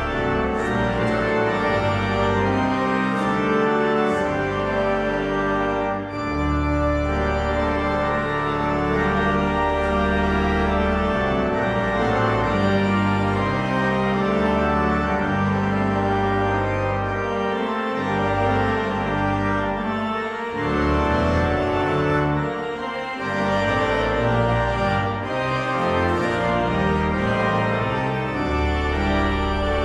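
Church pipe organ playing slow-moving full chords over deep pedal bass notes that change every second or two.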